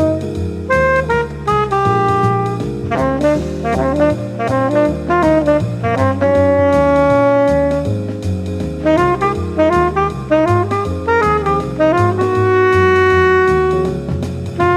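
1956 Keilwerth New King tenor saxophone playing a jazz melody, with long held notes about six seconds in and again near the end, over a backing track of bass and drums.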